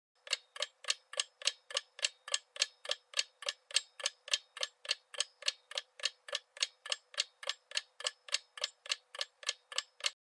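Clock-ticking sound effect used as a quiz countdown timer: a steady run of crisp, even ticks, about three and a half a second, that stops shortly before the answer is given.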